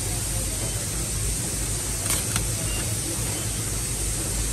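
Steady low machine hum with two sharp clicks a quarter second apart about two seconds in, from a SWIFT automatic cable tie machine cinching and cutting a nylon tie around a bundle of PV cables.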